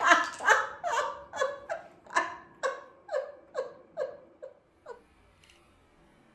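A woman laughing: a run of about a dozen short laughs, each dropping in pitch, at roughly two a second, fading away after about five seconds.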